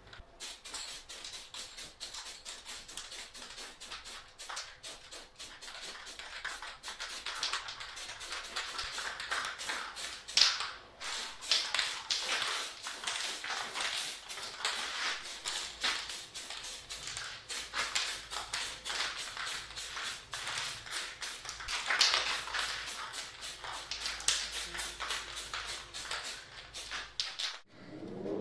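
Continuous rapid, irregular clicking and tapping from hand work on a bicycle, with louder clicks about a third of the way in and again past the middle.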